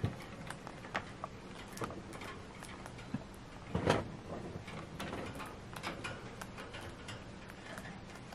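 Chinchilla gnawing on an apple wood chew: quick, irregular crunching clicks as its teeth bite into the wood, with one louder crunch or knock about four seconds in.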